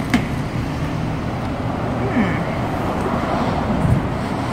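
Steady street traffic noise, with a brief sharp click right at the start.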